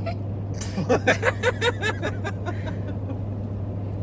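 Laughter, a quick run of short laughs about a second in, over the steady low drone of a car's road and engine noise inside the cabin.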